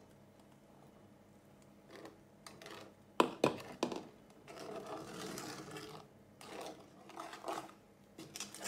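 Wooden spoon stirring and scraping a thick flour batter in a stainless steel saucepan, in rough bouts from about four seconds in. A few sharp knocks come just after three seconds.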